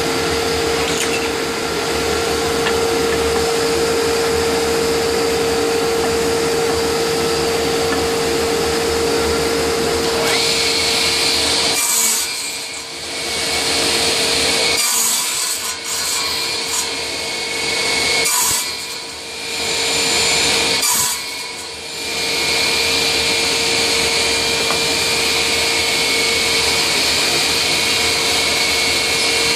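Radial arm saw motor and blade running steadily with a steady hum, dust collection drawing through the hood. Between about 12 and 22 seconds in, the blade crosscuts a wooden board four times, each cut a brief high-pitched rasp.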